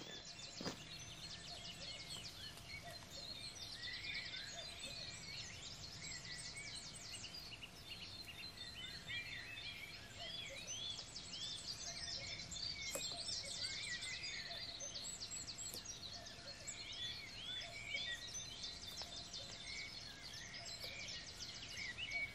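Several small songbirds chirping and singing together, with many quick high notes and short arched calls overlapping throughout, over a faint steady low background noise.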